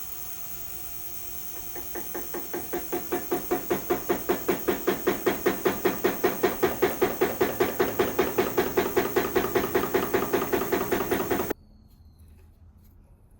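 A machine running with a regular mechanical knock about five times a second. The knock starts about two seconds in, grows louder over a few seconds, holds steady, and stops suddenly near the end.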